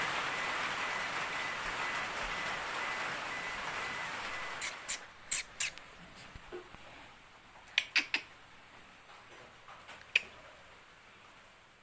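A steady hiss of rain that fades away over the first four seconds, followed by a handful of short, sharp clicks: a few together, then a pair, then one more near the end.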